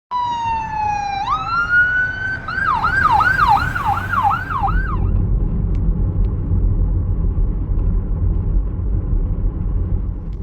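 Emergency vehicle siren: a long tone sliding slowly down, then stepping up, then a rapid yelp of about seven quick rising-and-falling sweeps that stops about five seconds in. A steady low traffic rumble runs underneath and goes on after the siren stops.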